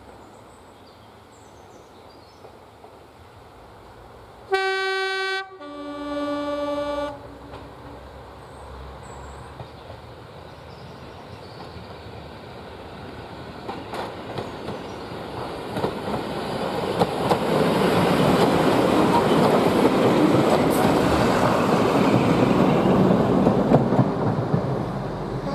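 Heritage diesel multiple unit sounds its two-tone horn about five seconds in, a higher note then a lower one. Its diesel engines and wheels on the rails then grow steadily louder as it pulls away and passes close by, loudest in the last third.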